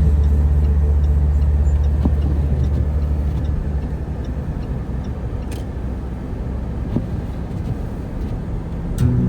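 Low steady rumble of a motor vehicle, fading to a quieter rumble about three and a half seconds in.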